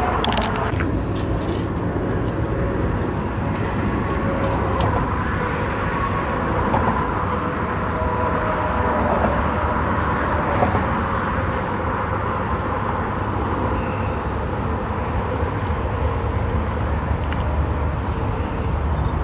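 Steady rumble of road traffic going by, with no single event standing out.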